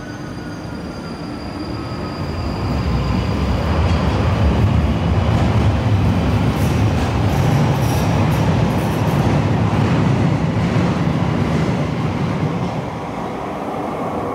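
London Underground 1995 Stock train pulling out of the platform and into the tunnel: wheels and traction motors building up over the first few seconds, holding loud as the cars pass, then easing off near the end as the last car leaves.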